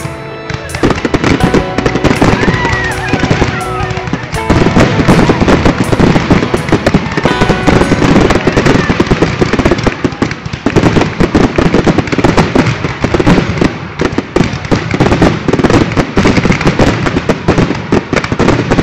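Fireworks going off in a dense, rapid barrage of bangs and crackles, with recorded music playing under them for the first several seconds.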